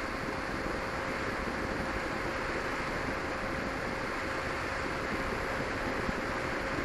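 Steady in-flight sound of a small electric FPV plane, as heard from its onboard camera: a custom-wound 1600 kV brushless motor and propeller running at a constant speed, a thin steady whine over a loud, even rush of wind across the microphone.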